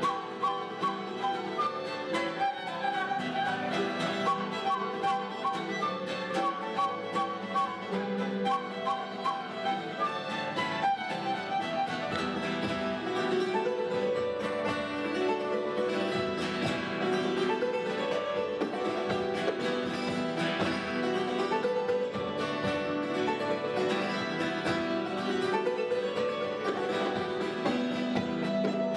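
Traditional Irish dance tune played live by a small acoustic band: fiddle leading over acoustic guitar, hammered dulcimer and harp. The rhythmic pulse of the opening section gives way to a steadier, busier texture about twelve seconds in.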